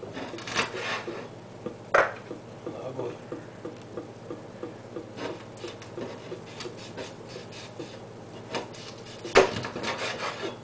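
Heavy meat cleaver chopping chicken wings on a wooden cutting board: a few sharp chops, the loudest about two seconds in and near the end, with lighter knocks and scraping of meat on the board between them.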